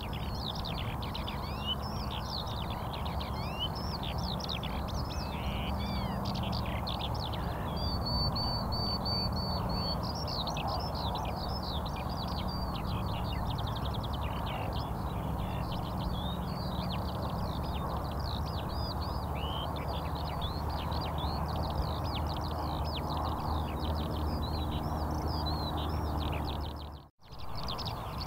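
A dense chorus of many small birds chirping without a break, over a low steady hum. The sound drops out for a moment near the end.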